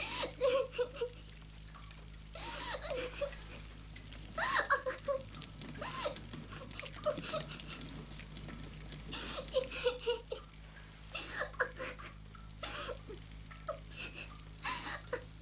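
Irregular rustling and crackling in short bursts, about one every second or so, over a low steady hum.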